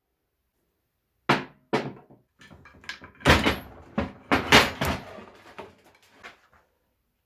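Metal parts of a speed sprayer's gearbox knocking and clanking as it is taken apart: two sharp knocks, then a quick run of clanks and thuds with brief ringing after the loudest ones.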